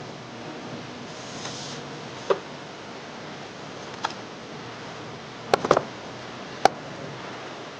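Steady hiss with a few sharp clicks or knocks: a single one, a fainter one, a quick run of three, then one more near the end.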